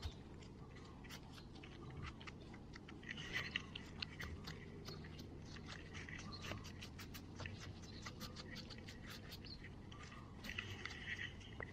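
Fingers scraping and raking dry, gravelly soil, with a steady crackle of small crunches and ticks from grit and pebbles. Busier stretches of scraping come about three seconds in and again near the end.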